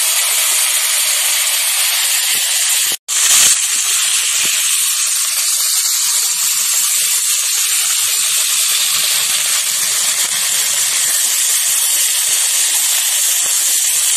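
Cut hog plum (amra) pieces sizzling loudly in hot mustard oil in a wok, just after going into the pan. The sizzle cuts out for an instant about three seconds in, then comes back louder before settling to a steady hiss.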